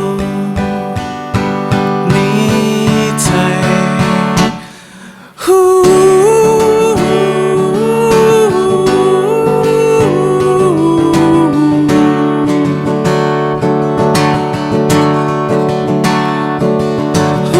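Live song with strummed acoustic guitar in a passage without words; the music drops out for about a second around five seconds in, then comes back louder with a held, stepping melody line over the strumming.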